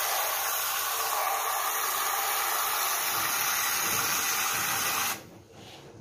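Tap water from a pull-out kitchen faucet head pouring in a steady stream into a clay pot of fish, shut off suddenly about five seconds in.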